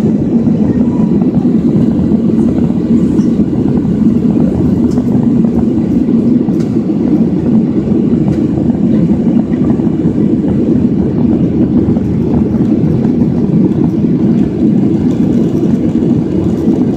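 Jet airliner in flight heard inside the cabin: a loud, steady rumble of the engines and rushing air, unchanging throughout.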